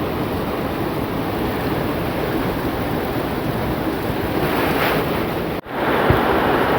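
Steady rain falling, a continuous hiss. About five and a half seconds in, the sound cuts out for an instant and comes back slightly brighter.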